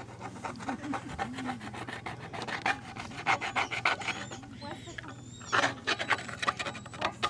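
A plastic spoon stirring and scraping a thick mixture in a cast iron skillet, in quick repeated scraping strokes.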